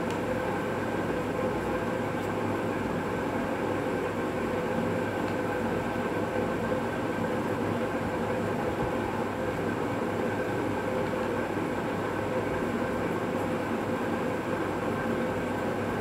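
Steady mechanical hum over an even rushing noise, unchanging in level and pitch throughout.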